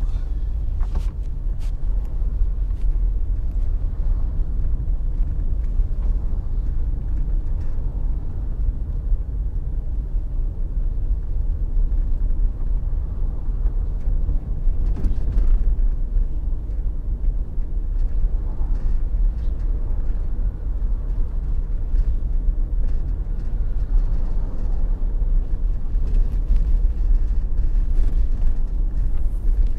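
A car driving along a paved road: a steady low rumble of engine and tyre noise that stays even throughout.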